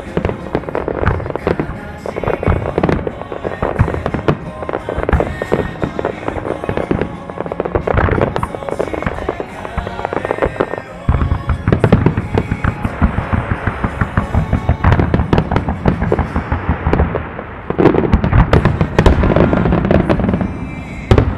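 Music starmine: a rapid barrage of firework shells bursting and crackling in close succession, with music playing over loudspeakers beneath. The bursts come thicker and louder about halfway through.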